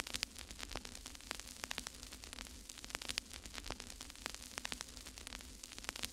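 Faint crackling static: irregular clicks and pops over a steady hiss and a low hum.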